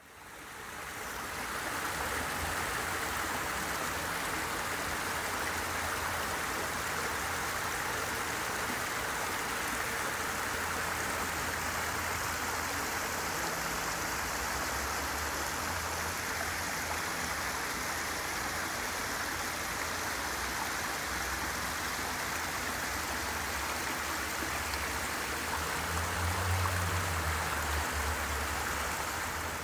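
Water running and splashing down a small landscaped rock cascade, a steady rush that fades in at the start.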